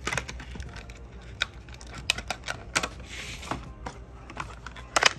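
Small hard clicks and taps, irregular and scattered, from handling glass nail polish bottles and their plastic caps, with a brief hiss near the middle.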